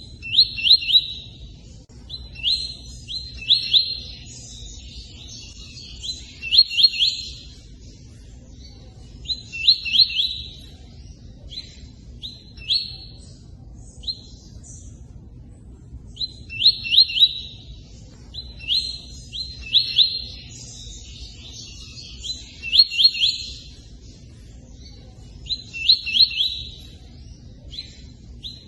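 A tui-tui bird singing in short separated phrases, each a quick run of high, clear notes, about one every two to three seconds with pauses between. A steady low rush of running water sounds underneath.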